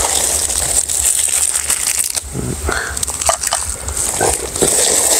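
Crinkling and rustling of plastic-wrapped sweets as they are handled and set down, with short irregular crackles and clicks.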